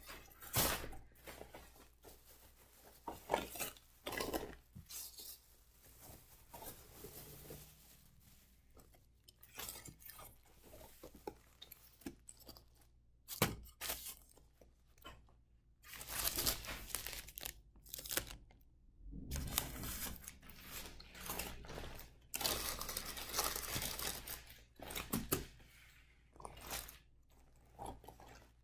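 Plastic carryout bag and paper sandwich wrap being handled and pulled open, making irregular bursts of rustling, crinkling and tearing with short pauses between them.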